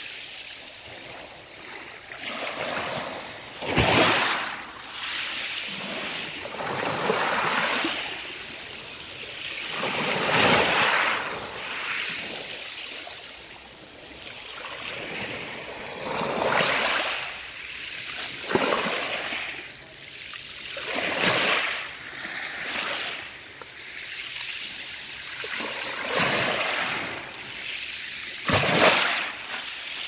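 Small waves of a calm sea washing onto a pebble beach, with a splashing surge every two to three seconds and a soft wash of water between them.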